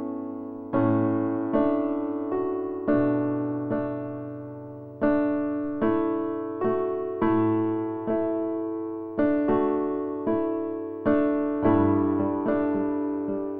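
Background music: an unhurried solo piano melody. Each note or chord is struck and left to fade, about one or two a second.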